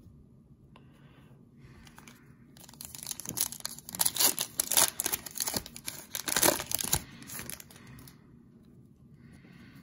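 A foil trading-card pack (2020 Prizm football) being torn open by hand, its wrapper ripping and crinkling in a dense run from about three to seven seconds in, with lighter rustling before and after.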